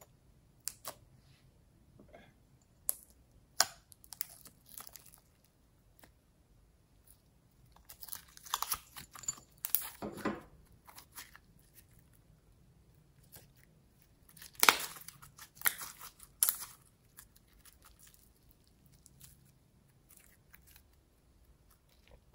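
Glossy slime being stretched and squeezed by hand, giving sticky crackles and pops, with a few single clicks between. The crackling comes in two louder spells, one about a third of the way in and one past the middle.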